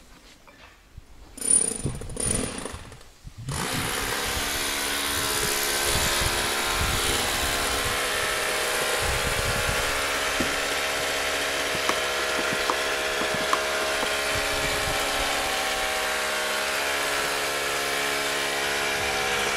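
Background music starts about three and a half seconds in and holds at an even level to the end. Before it come a few faint knocks and clatter from handling.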